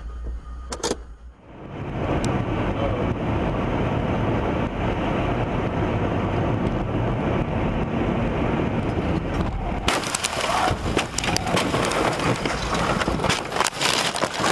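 Car noise: a steady rushing of engine and road that starts about two seconds in. About eight seconds later a dense, irregular crackle of clicks and knocks joins it.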